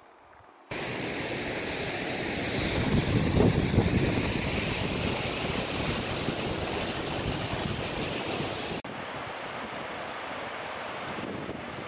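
Wind gusting against the microphone, starting suddenly about a second in, with heavier low buffeting around the middle. Near the end it cuts to a steadier, slightly quieter rush of a stream running over granite slabs.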